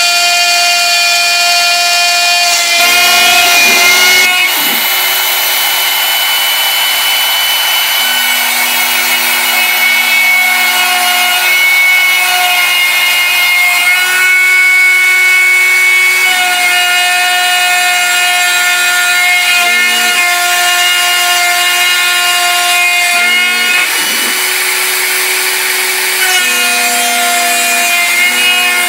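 Bosch Colt trim router on a CNC machine milling bamboo with a quarter-inch two-flute bit: a steady, loud motor whine with cutting noise, its mix of tones shifting every few seconds as the cut moves on.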